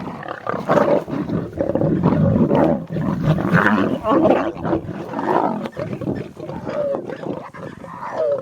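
Lion cubs growling over food, loud and almost unbroken, rising and falling in rough waves with brief pauses.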